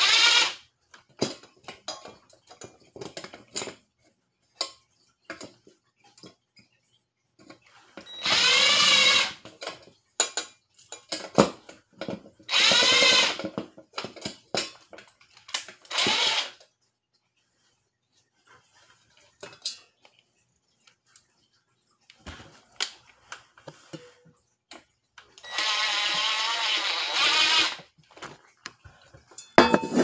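Cordless drill running in several short bursts of a few seconds each, its motor pitch wavering under load, with scattered clicks and knocks of handling between the runs.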